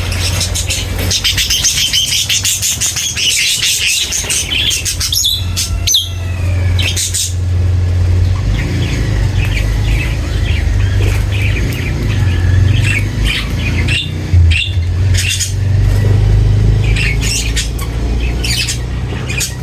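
A flock of small birds chirping and twittering busily, many short calls overlapping, over a steady low rumble. There is a brief sharp knock about two-thirds of the way through.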